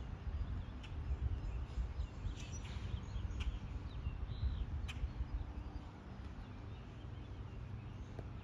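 Outdoor ambience of a steady low rumble with a few faint, high bird chirps and peeps in the first half, along with a couple of light ticks.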